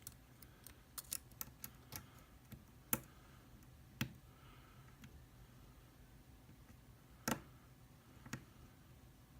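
Small sharp clicks of a diamond lock pick working the pin stack inside an Abus 80TI/50 Titalium padlock under tension: a quick cluster of clicks in the first two seconds, then single clicks a second or more apart.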